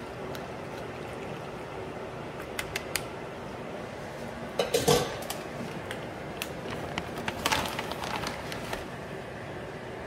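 Kitchen handling sounds over a steady background hum: a metal spoon and an aluminium foil pan clicking and clattering. There are a few light clicks, a louder clatter about five seconds in, and another run of clicks and rustling around eight seconds.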